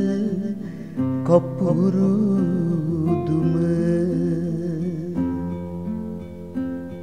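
Sinhala kavi verse sung by a male voice over a plucked instrumental accompaniment. The voice stops about three seconds in, leaving the accompaniment playing picked notes alone.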